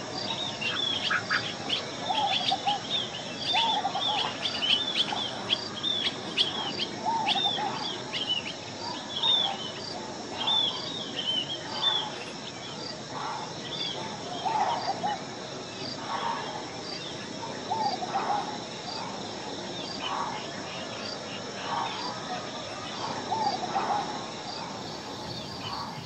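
Wild birds calling over a steady high insect drone. Short, high, downward-hooked chirps come about twice a second and thin out about halfway through, while lower warbled notes recur every second or two.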